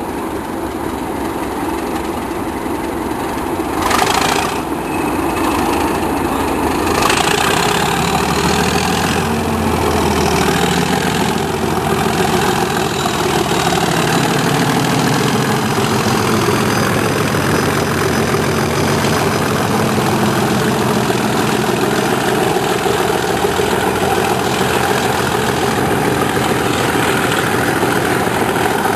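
Class 37 diesel locomotives' English Electric V12 engines running hard under power, the deep engine note building about eight seconds in and then holding steady. A short loud noisy burst comes about four seconds in.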